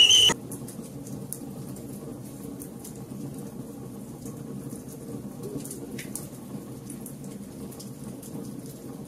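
Wood fire burning: a steady low rush with scattered sharp crackles and pops. A brief loud high-pitched sound opens and cuts off sharply.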